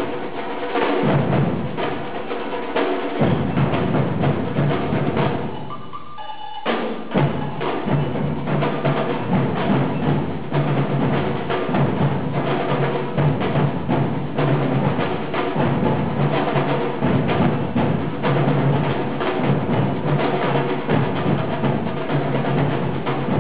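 Music driven by drums and percussion, with steady bass notes underneath; the playing drops away briefly about six seconds in, then the full beat comes back.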